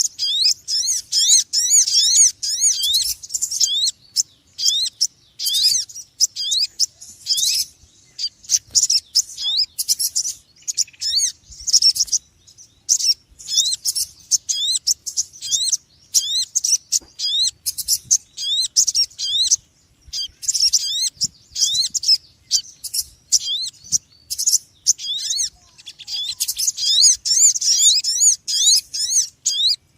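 Small birds chirping noisily: rapid bursts of short, high chirps, many overlapping, broken by brief pauses.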